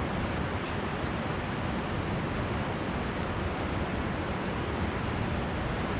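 Steady rush of river white water, an even noise without breaks.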